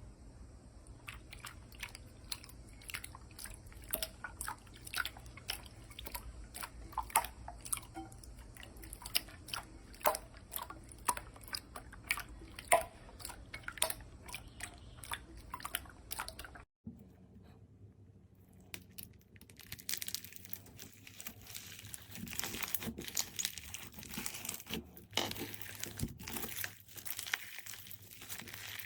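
Slime being squeezed and pressed by hand, making sharp crackling pops several times a second. About two-thirds of the way in there is a cut, and a denser, more continuous crinkly crunching follows.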